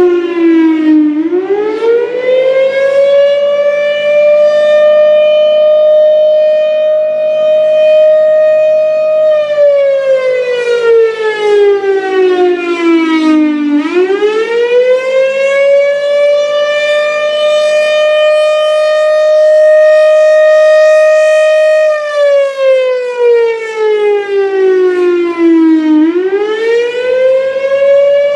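1957 Federal Sign & Signal Thunderbolt 1000 warning siren sounding the attack signal, a loud rising-and-falling wail. About every twelve seconds the pitch climbs quickly, holds high for several seconds, then slides slowly down; it bottoms out three times.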